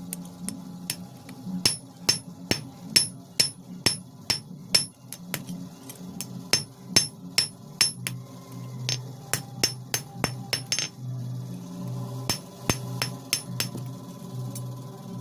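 Hand hammer striking iron on an anvil while forging a cold chisel (chheni): sharp, ringing blows about two a second, a short pause about eleven seconds in, then a few more blows. A steady low hum runs underneath.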